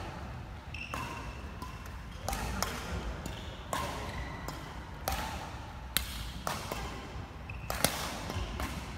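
Badminton rackets striking a shuttlecock in a large echoing hall, a sharp hit about every second and a half, with short squeaks of shoes on the wooden court floor.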